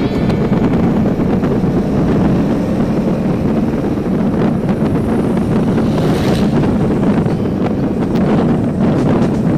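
Motorcycle running steadily on the move, its engine buried under heavy wind noise on the microphone. A short rushing hiss swells and fades about six seconds in.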